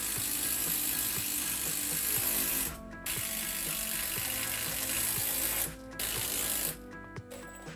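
A cordless impact driver hammering long screws into a new 2x6 sister joist, in three runs with short pauses between them: a long one, a slightly shorter one, then a brief one near the end.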